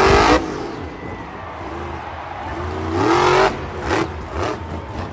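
A vehicle engine revving, rising in pitch twice over a steady low hum, followed by a quick series of clicks near the end.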